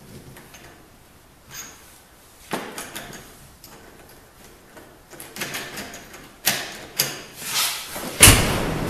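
Clicks and knocks of a door latch and knob being fitted into a door, coming more often toward the end, then one loud thump with a ringing decay near the end.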